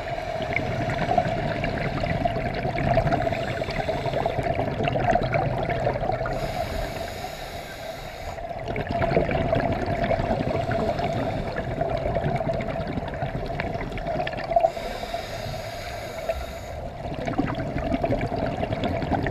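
Scuba regulator breathing heard underwater: bubbling exhalations alternating with a hissing inhale, twice, each about two seconds, over a steady hum.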